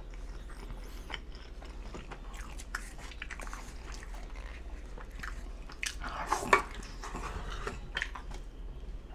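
Close-miked chewing of pizza crust dipped in marinara sauce: soft wet mouth clicks and bites, with a louder crunchy cluster about six seconds in.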